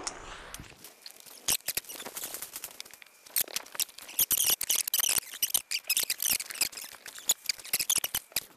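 Footsteps crunching on gravel strewn with dry fallen leaves: irregular sharp crackles that start about a second and a half in and come thickest in the middle.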